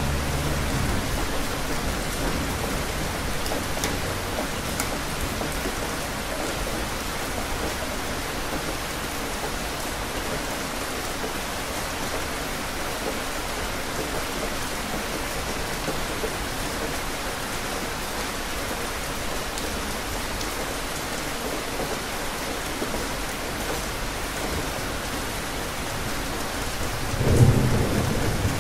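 Steady rain falling, with a low thunder rumble dying away in the first second and a sharp, louder thunderclap near the end.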